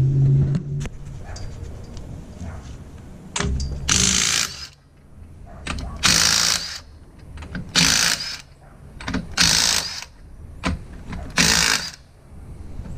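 Impact wrench breaking a truck wheel's lug nuts loose in five short bursts, roughly one every two seconds.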